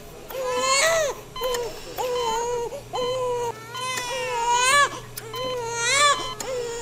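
Newborn baby crying: a string of wails, each about a second long, with short breaths between.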